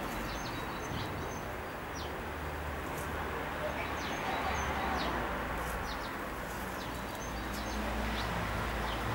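Steady outdoor background hiss and low rumble, with scattered short, faint bird chirps.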